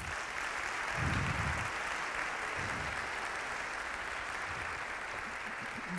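Audience applauding steadily, with a low thud about a second in.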